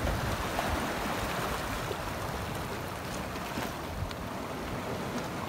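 Sea surf washing steadily over shoreline rocks, with wind on the microphone.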